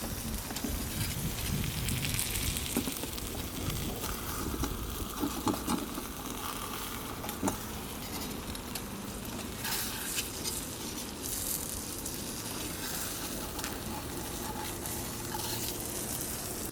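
Homemade bacon and eggs sizzling in a frying pan on a gas stove: a steady hiss with scattered small pops. Wind rumbles on the microphone, most strongly in the first few seconds.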